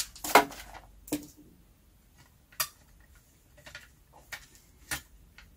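Plastic case parts of a Casio Algebra 2.0 calculator being fitted and pressed together by hand: a series of sharp clicks and taps, the loudest near the start, then single clicks about every second.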